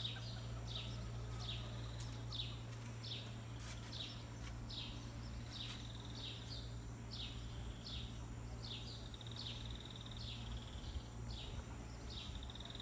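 A bird calling: short descending chirps repeated about twice a second, broken by a few longer buzzy trills near the middle and end. A steady low hum runs underneath.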